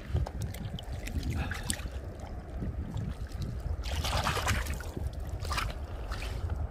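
Wind rumbling on the microphone, with water sloshing and splashing about four seconds in and briefly again about a second later as fish lying in icy slush water on the ice are moved by hand.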